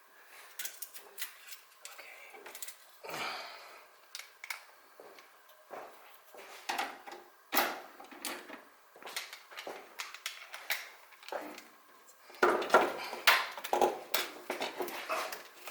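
Scattered clicks and metallic clinks of hand tools and engine parts being handled while the intake manifold's vacuum lines and wiring plugs are being worked loose, turning into busier, louder clattering near the end.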